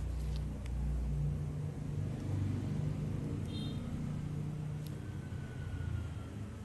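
A low, steady motor rumble, with a brief high-pitched chirp about halfway through.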